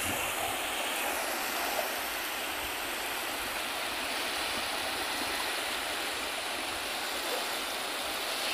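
Small sea waves washing onto a flat sandy beach: a steady hiss of surf.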